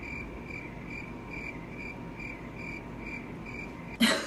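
Cricket chirping sound effect, a steady run of short high chirps about four a second, starting abruptly and stopping just before the end: the awkward-silence gag. A brief loud sound breaks in as the chirping stops.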